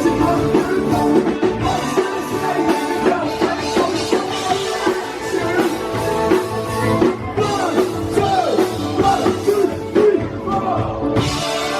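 A rock band playing live: drum kit, bass, keyboards and guitar together, with bending, gliding melody notes over a steady beat.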